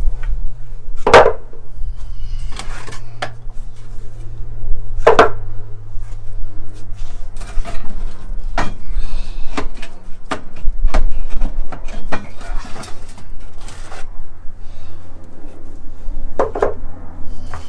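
Wooden bottom boards knocking and clattering as they are handled and lifted out of a wooden molding bench, with three heavier wooden knocks: about a second in, about five seconds in and near the end. A steady low hum runs underneath.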